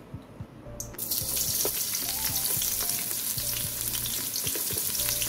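Chopped onion hitting hot oil in a rice cooker's inner pot, with dried red chillies already frying in it. A sizzle starts suddenly about a second in and carries on as a steady, crackling fry. This is the tempering (baghar) for dal.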